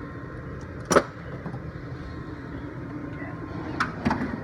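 Hand tools and tool-box drawers being handled: one sharp metallic clack about a second in and a few lighter clicks near the end, over a steady background hum.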